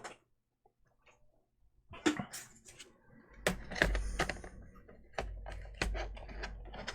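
Scattered sharp plastic clicks and knocks, with low handling thuds, as a laptop is handled during reassembly. The sounds begin about two seconds in.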